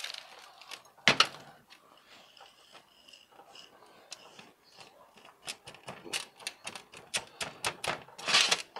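A plastic knock about a second in, then irregular clicking and rattling of granular bonsai substrate (akadama and kiryu) being pressed and worked into the pot by hand. A short louder rustling rush comes near the end.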